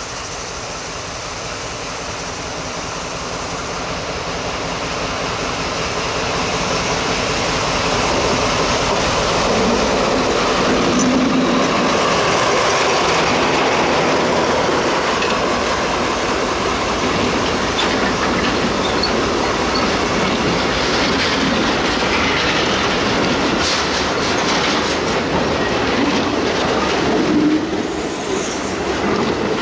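A diesel-electric locomotive approaches and passes close by, growing louder over the first several seconds. Container wagons then roll past, their wheels clicking over the rail joints, with some thin wheel squeal from the curve near the end.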